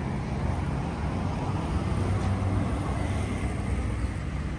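Two-cylinder diesel engine of a 20 kVA open generator set running steadily, with a low, even pulsing.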